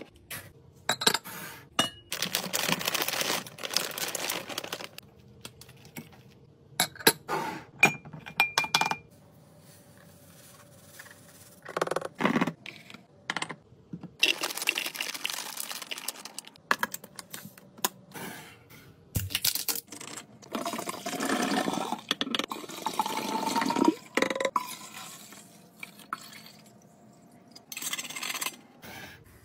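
Containers being handled while a fridge is restocked: a string of clinks, knocks and rustles, with stretches of liquid being poured. About twenty seconds in, a long pour into a container rises steadily in pitch as it fills.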